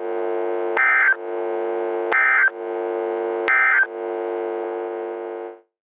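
Three short bursts of EAS end-of-message data tones, a little over a second apart, each starting with a click. They play over a steady droning background tone that cuts off abruptly near the end.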